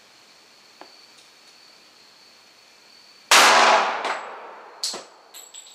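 A single .45 ACP +P gunshot from a Colt 1911 Series 80 pistol with a 5-inch barrel, about three seconds in, echoing off the garage walls for about a second. About a second and a half later the ejected brass case clinks down and bounces a few times, ringing.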